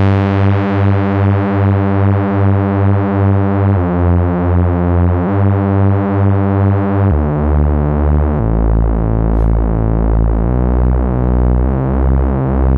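Cherry Audio LowDown, a software emulation of the Moog Taurus bass pedals, playing seven deep bass notes one after another, each held one to four seconds. The notes pulse with a steady wobble of about three beats a second from the preset's mod-wheel modulation.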